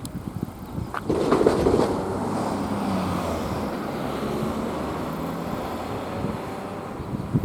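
A vehicle passing close by: a steady running noise with a faint low engine tone, setting in about a second in and holding evenly.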